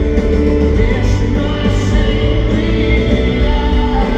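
A live rock band playing through an arena sound system, heard from within the crowd. Sustained chords sit over a steady, heavy bass with no pause.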